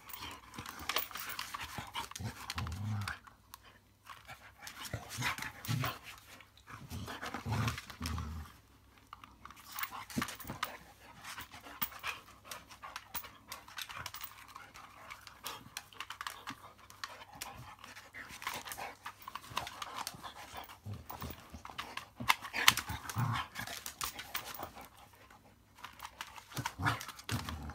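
A dog panting hard as it bites and tussles with a reacher-grabber stick, with irregular clicks and knocks from the tool against the tile floor.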